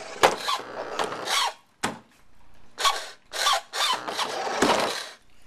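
Toy remote control car's small electric motor whirring in short, stop-start bursts as it is driven, with one of its wheels broken.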